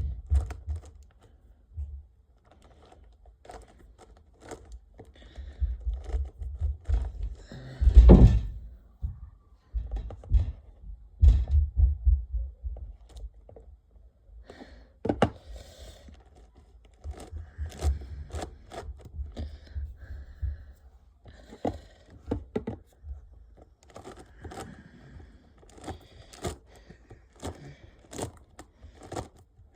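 Diansheng mini magnetic 7x7 puzzle cube being turned by hand: irregular quick clicks of its layers, with low thumps from handling, the loudest about eight seconds in.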